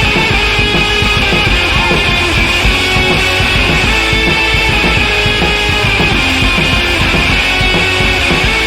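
Loud background rock music with distorted guitar.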